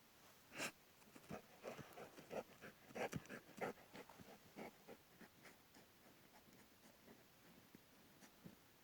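A dog scratching, a quick irregular run of faint scrapes and clicks that thins out in the second half.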